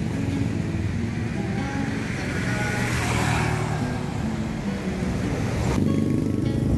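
A motor vehicle passes, loudest about three seconds in, over background music of short plucked notes. Near the end a motorcycle's engine is heard close by.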